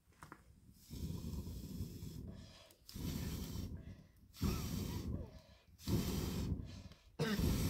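A person blowing hard into the embers of a small wood fire to rekindle it: five long, gusty puffs of about a second each, with quick breaths taken between them.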